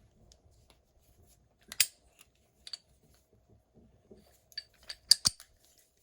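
Sharp metallic clicks and clacks from a padlock and its freshly cut key being handled. There is one loud click about two seconds in and a quick run of clicks near the end.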